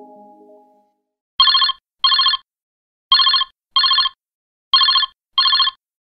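Telephone ringing with a trilling electronic ring, three double rings in a row, after a mallet chime dies away in the first second.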